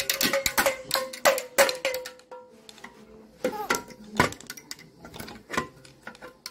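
Plastic toy damroo (pellet drum) shaken by a child, its beads striking the drumheads in quick rattling runs with a faint ring for the first two seconds. After that come a few scattered single strikes.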